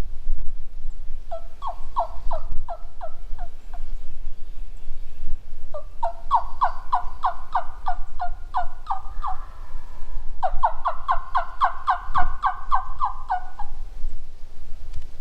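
Turkey yelps: three long runs of quick, falling notes, about six a second, each run lasting a few seconds.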